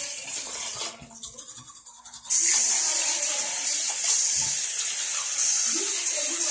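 Tap water running in a steady hiss. It drops away for over a second, then comes back suddenly and louder about two seconds in.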